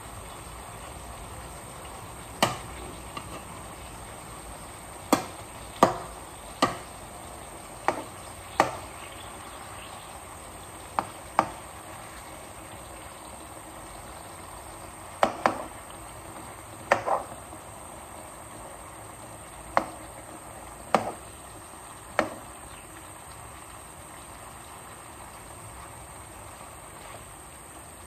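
Chicken pieces frying in a pan: a steady sizzle with sharp clicks scattered irregularly over it, about fifteen, some in quick pairs.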